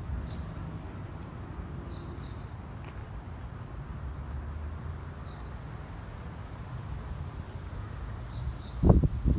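Outdoor ambience: a steady low rumble with faint, short high chirps every couple of seconds, and two loud low thumps close together near the end.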